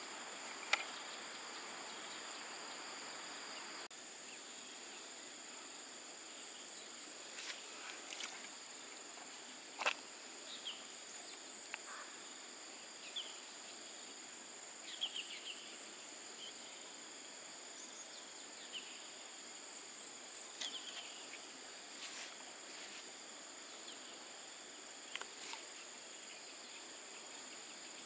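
Insects droning in a steady high-pitched chorus, with scattered sharp clicks and brief faint chirps.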